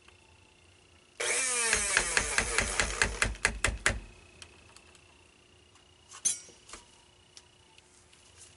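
Handheld stick blender running in a bowl of raw soap batter, blending it at light trace. It starts a little over a second in and runs steadily for about a second. It then pulses in many quick on-off bursts and stops about four seconds in. A brief clatter follows about six seconds in.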